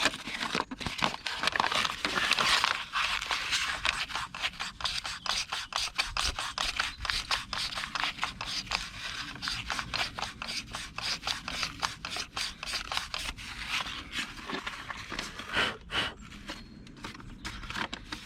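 Sandpaper rubbed by hand on a metal distributor shaft in quick back-and-forth strokes, a steady scraping, sanding rust off the shaft.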